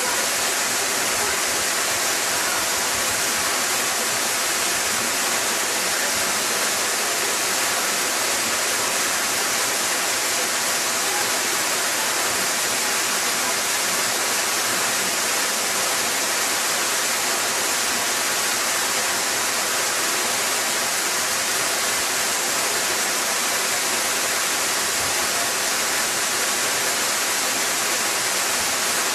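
La Mina Falls pouring into its plunge pool: a steady, unbroken rush of falling water.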